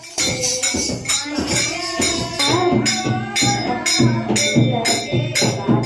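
Devotional song to the mother goddess (a Mata Rani geet): a melodic vocal line over a steady percussion beat of about two strikes a second.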